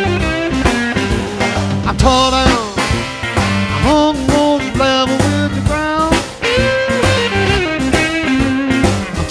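Soundtrack music: a blues-style song with guitar, its notes bending and sliding.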